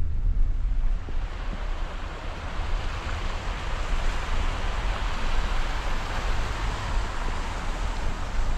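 Steady rushing noise with a strong, constant low rumble underneath.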